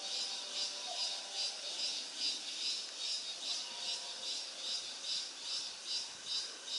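A chorus of forest insects, a high-pitched buzzing that swells and fades in an even pulse about twice a second.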